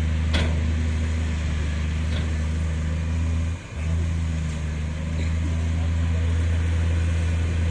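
Heavy earthmoving machine's diesel engine running steadily with a deep, even hum, briefly dipping about three and a half seconds in.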